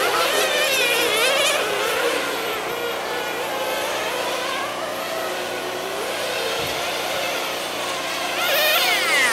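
Several nitro RC sedan cars' small two-stroke glow-fuel engines buzzing at high revs, overlapping pitches rising and falling as the cars accelerate and lift around the track. Near the end one engine climbs sharply in pitch as a car speeds up.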